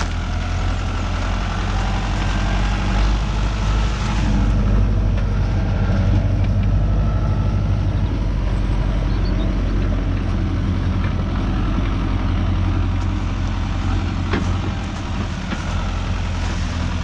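Renault 651 tractor's diesel engine running steadily, pulling a tipping trailer.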